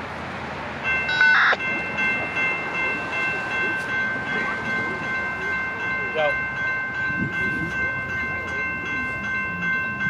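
Horn of an approaching Norfolk Southern freight locomotive, an AC44C6M, sounding about a second in as a chord of several steady notes and held without a break.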